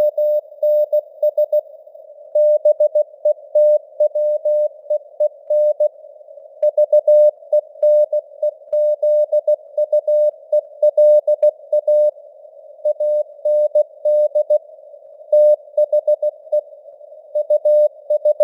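Morse code (CW) at 16 words per minute: a single tone of about 600 Hz keyed in dots and dashes, with longer gaps between words, over a narrow band of simulated radio static. The signal strength rises and falls slightly (QSB fading).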